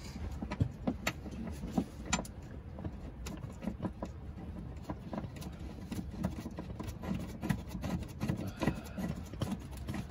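Scattered light clicks and rubbing as a harness lap-strap bolt is threaded in by hand at the seat mount, the strap webbing and plastic trim brushing against it.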